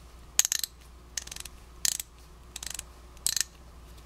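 Vintage Craftsman 3/8" drive 24-tooth ratchet, freshly rebuilt and greased, clicking as its drive is turned by hand. There are five short bursts of rapid pawl clicks, about one every 0.7 s, and the ratchet is working again.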